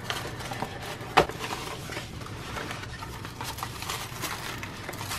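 A small cardboard box being opened by hand and the tissue paper inside handled: soft rustling and scraping, with one sharp tap about a second in.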